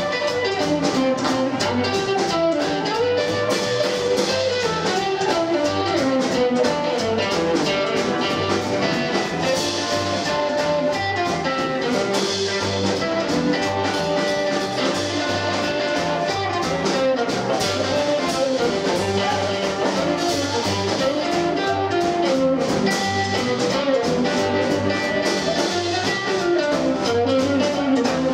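Live blues band playing an instrumental break: electric guitar taking the lead over upright double bass and a drum kit keeping a steady beat.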